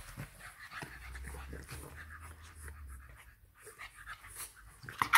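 English bulldog puppies play-fighting: panting and snuffling breaths with scuffling on artificial turf, in many short irregular bits, and a louder sound right at the end.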